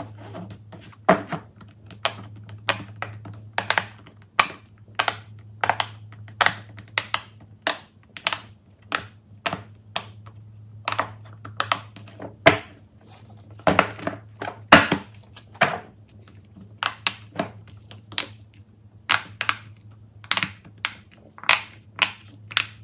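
Fidget toys such as silicone pop-its being pressed and handled: a string of sharp, irregular clicks and pops, about two a second, over a low steady hum.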